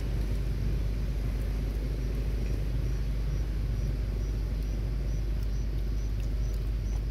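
Steady low rumble of outdoor background noise, with a faint high chirp repeating about twice a second from a few seconds in.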